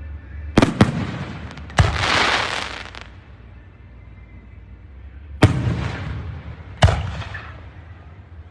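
Aerial fireworks shells bursting: five sharp bangs, each trailing off in an echo. The third bang, about two seconds in, is followed by about a second of dense hissing spray.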